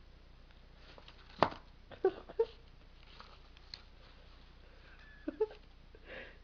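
A cat playing at a catnip-scented cat scratcher: one sharp knock about a second and a half in, then faint scraping and rustling, with a few brief pitched sounds.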